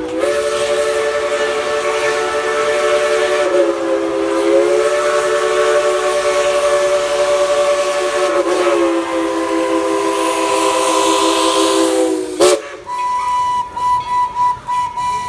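Steam locomotive whistle blowing one long blast of about twelve seconds, several notes sounding together, its pitch shifting twice. It cuts off in a sharp burst of steam, followed by a steady higher ringing tone that pulses regularly.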